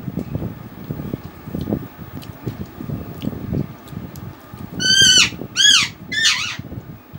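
Close-up chewing and mouth sounds of someone eating rice and fish curry by hand. About five seconds in, an animal gives three loud, high calls in quick succession, each sliding steeply down in pitch.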